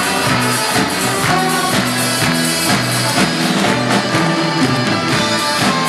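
Background music with a steady beat, played on instruments with tambourine or percussion.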